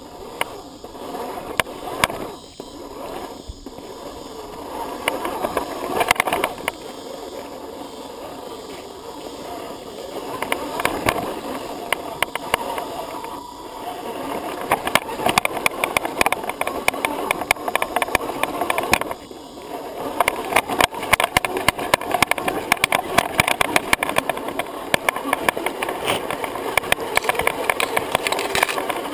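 Onboard sound of an Axial SCX10 Honcho 1/10-scale electric RC rock crawler driving over loose gravel and rocks: its motor and drivetrain running under a dense clatter of tyres on stones and rattling parts. The clatter grows thicker from about halfway on.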